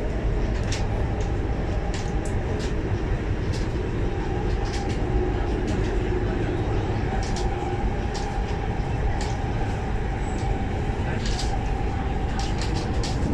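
Interior running noise of a Guangzhou Metro Line 6 linear-induction-motor train in a tunnel: a steady rumble with a faint whine, broken by frequent sharp clicks.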